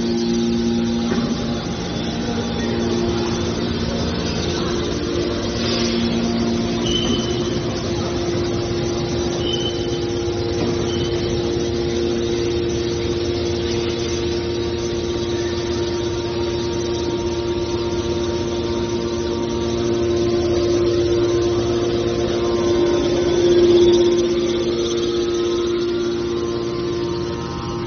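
Hydraulic power unit of a small scrap metal baler running steadily, a constant motor-and-pump hum that swells briefly about three-quarters of the way through.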